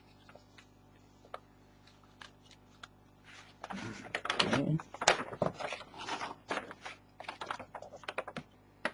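Clear plastic packaging crinkling and rustling as bagged accessories are handled, with sharp clicks mixed in. It starts about three and a half seconds in after a quiet stretch and dies down near the end.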